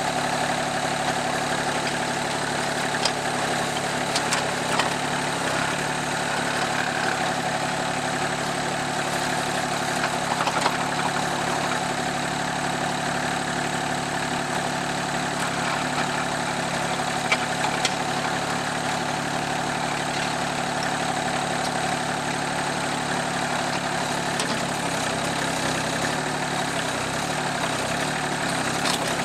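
Rural King RK24 subcompact tractor's engine running steadily at idle, with a few light clicks.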